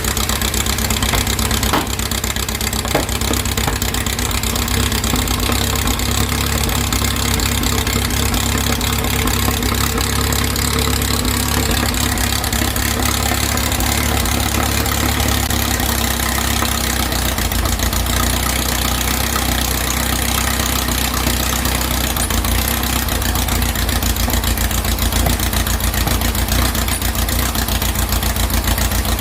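A 2332cc air-cooled VW flat-four engine on dual Empi HPMX 44 carburettors, idling steadily.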